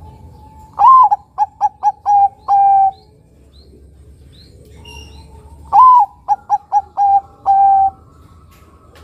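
Zebra dove (Bangkok-strain perkutut) singing its cooing song twice. Each phrase opens with a long note, runs into about four quick short notes and ends on a longer held note. Faint high chirps of another bird come in the gap between the phrases.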